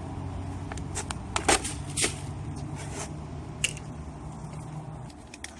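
Plastic drink bottle being handled and drunk from, with sharp crackles and clicks of the plastic, over a low steady hum that fades out near the end.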